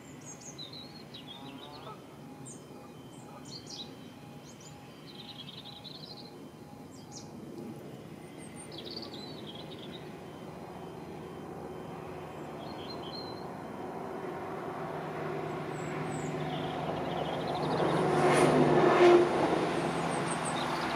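Birds chirping, while the sound of an approaching CrossCountry diesel train grows steadily louder, peaking about eighteen to nineteen seconds in and easing slightly after.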